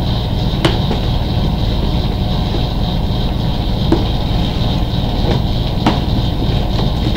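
A steady low rumble of background noise, with a few short sharp clicks as a cardboard-and-plastic package is picked up and handled.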